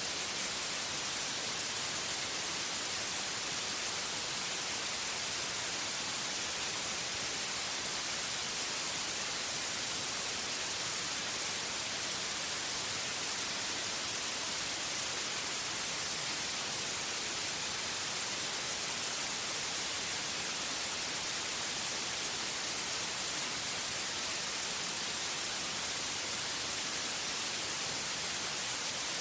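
Steady white noise: an even, unchanging hiss, strongest in the highs.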